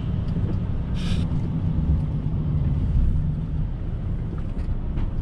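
Lorry on the move: a steady low engine and road rumble, with one short hiss about a second in.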